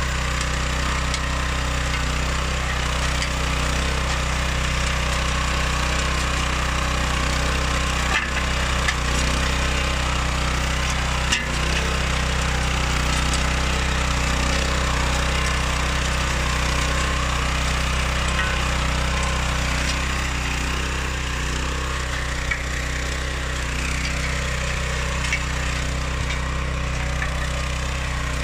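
Oleo-Mac MH 150 RK motor hoe's 700 H petrol engine running steadily, with a couple of sharp knocks about a third of the way in.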